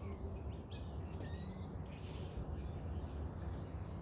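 Faint bird chirps, a few short calls in the first half, over a steady low background hum.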